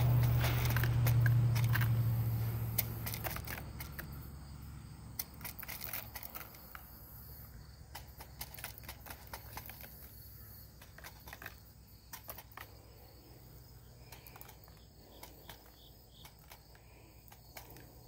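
Small pebbles, garnets and shell bits ticking and clicking irregularly as they are sprinkled from a plastic cup into foil paydirt bags. A low hum fades out over the first few seconds.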